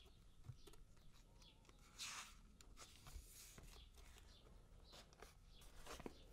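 Faint rustling of paper as the pages of a paperback book are turned by hand. The loudest swish comes about two seconds in, with a few light ticks and another rustle near the end.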